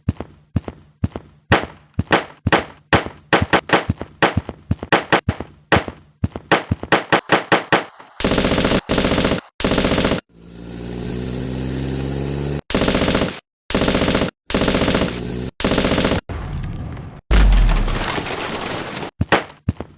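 Battle sound effects of gunfire: single rifle shots coming faster and faster, then long machine-gun bursts. About halfway through, an engine rises in pitch between bursts, and a heavy low boom comes near the end.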